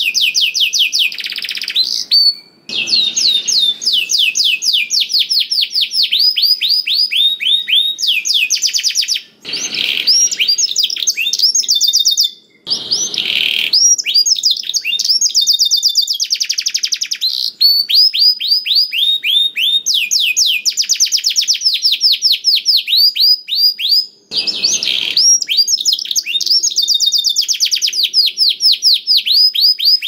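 Domestic canary singing a long, nearly unbroken song of fast trills, each a rapid run of repeated downward-sweeping notes. The song breaks off briefly about four times.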